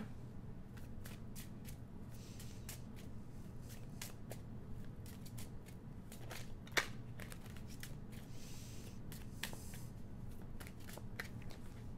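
A deck of Divine Feminine Healing oracle cards being shuffled and handled: scattered light card clicks and flicks, with one sharper snap a little before halfway and a brief soft sliding sound soon after.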